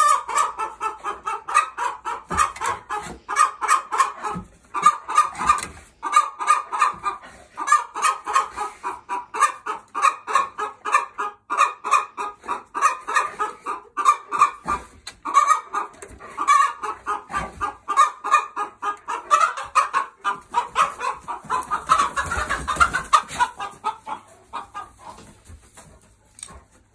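Chickens clucking and cackling rapidly and without a break, several calls a second, dying away near the end.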